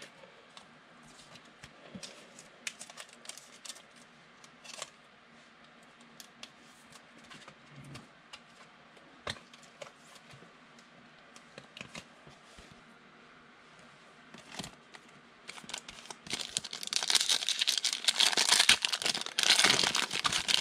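Trading cards being handled, with scattered small clicks and taps, then a plastic card-pack wrapper crinkling loudly as it is torn open during the last five seconds.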